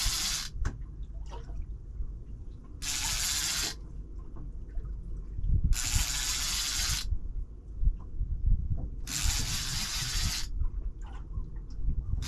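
Fishing reel being wound in four short spells of about a second each, roughly every three seconds, as a hooked fish (a small spotted ray) is pumped up from the bottom. A low rumble runs underneath.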